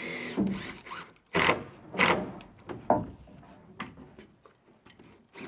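Several short rasping bursts of tool work on framing lumber in the first three seconds, then only faint scattered clicks.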